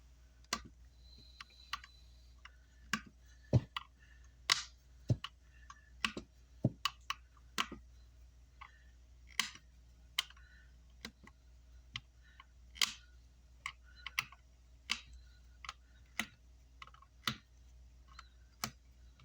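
Irregular sharp clicks and taps, one to two a second, from small hand tools working on an amplifier circuit board while its output MOSFETs are being soldered in, over a steady low hum.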